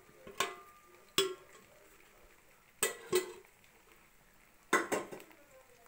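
Metal kitchenware clinking and knocking: about six sharp knocks with a brief ring, the last four in two quick pairs.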